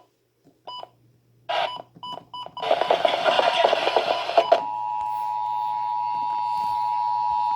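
A couple of short electronic beeps and a harsh, noisy burst of radio audio, then, a little past halfway, the Emergency Alert System two-tone attention signal sounds steadily over the radio, opening a flash flood warning.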